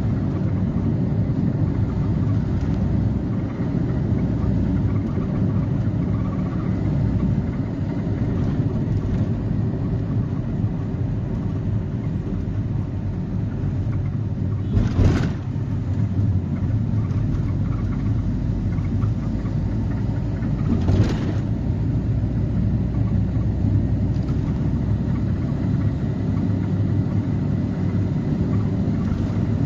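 Steady low road and engine rumble heard from inside a moving vehicle. Two short thumps cut through it, about halfway through and again some six seconds later.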